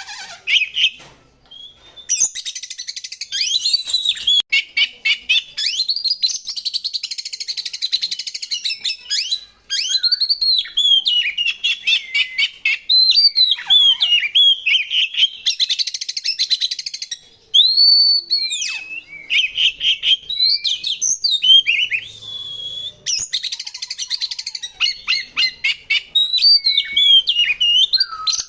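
Oriental magpie-robin singing a long, fast, varied song: loud whistled slurs mixed with rapid buzzy trills, full of imitated phrases of other birds, with a few short pauses.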